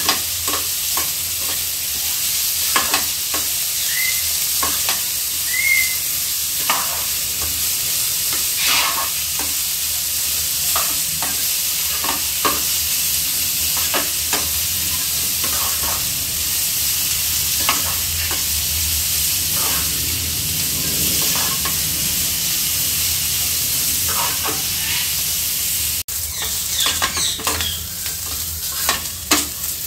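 Sliced onions sizzling in hot oil in a steel kadhai while being fried toward light brown. A perforated metal spatula stirs them, scraping and knocking against the pan again and again over the steady sizzle.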